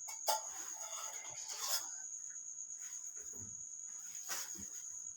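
A few soft clicks, about three, as the keypad buttons of a Tecno T484 button phone are pressed to test them; the hash key is not responding. A steady high-pitched whine, like a cricket's trill, runs underneath.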